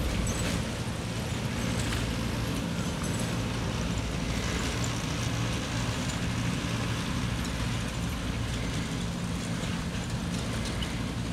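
An engine running steadily at an even pitch, a low hum under faint outdoor noise.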